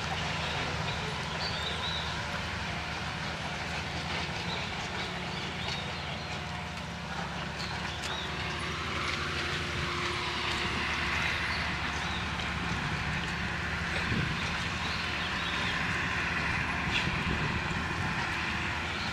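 Engine running steadily with a low hum, and a hiss that swells through the middle.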